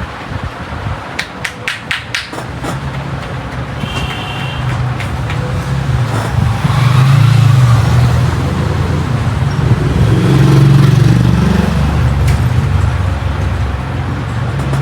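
A motor vehicle's engine running close by, its low hum building over several seconds and staying loud. There are a few sharp clicks about a second in.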